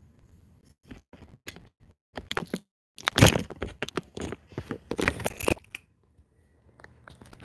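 Handling noise as the recording device is picked up and moved. A few clicks come first, then crackling, rustling rubs and knocks right on the microphone, loudest around the middle, before it quietens.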